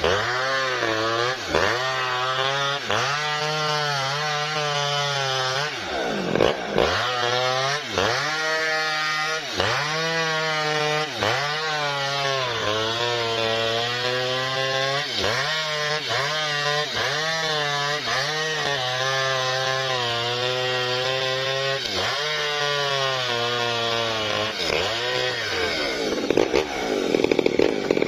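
Small Maestro two-stroke chainsaw ripping a felled coconut palm trunk lengthwise, its engine note dipping and recovering over and over, less than a second apart, as the chain bogs in the cut. Near the end it runs louder and higher as the cut breaks through.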